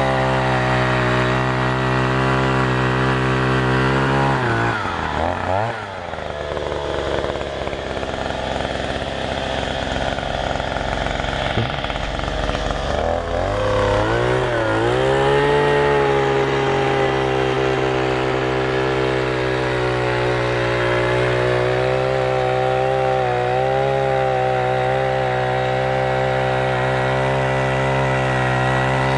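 Oshima 2P earth auger's 49.9 cc single-cylinder two-stroke engine running steadily at high speed as the auger bores into hard, root-filled soil. About four seconds in it drops to idle, then about thirteen seconds in it revs back up and holds a steady high speed.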